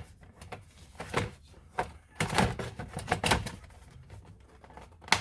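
Plastic steering column covers being handled and pressed together, with a series of clicks and knocks, a busy stretch of rattling clicks in the middle and one sharp snap near the end.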